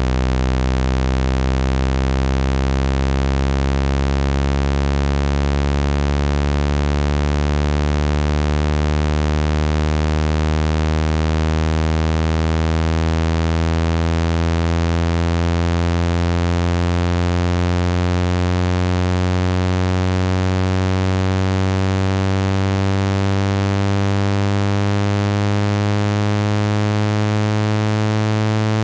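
Low, buzzy water-eject test tone, a synthesized tone rich in overtones, sweeping slowly and steadily upward in pitch. It is played loud to vibrate trapped water out of a phone speaker.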